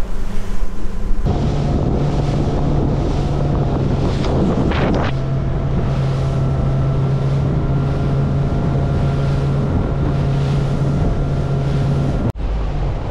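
Bay boat's outboard engine running steadily under way, with wind buffeting the microphone and water rushing along the hull. The engine's note drops a little about five seconds in.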